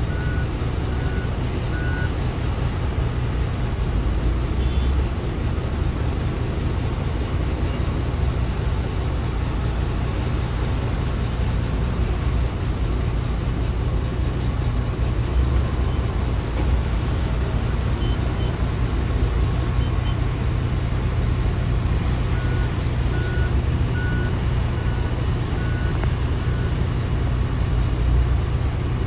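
Heavy quarry machinery's diesel engines running steadily with a low drone, and a reversing alarm beeping at about one beep a second in two spells: near the start and again about three-quarters of the way through.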